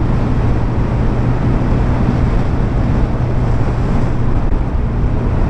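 Honda CBF600's inline-four engine running at a steady cruise, a low even hum under heavy wind rush on the microphone.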